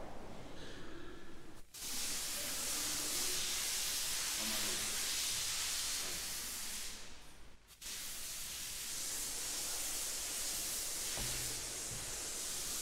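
Steady hiss from an open microphone line with nobody speaking, cutting out abruptly twice for a moment.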